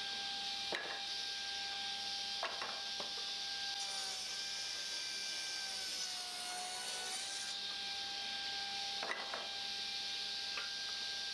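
Woodworking power saw running and cutting walnut or maple boards to width, its pitch dipping briefly about six seconds in as the blade takes the load, with a few light knocks of the timber.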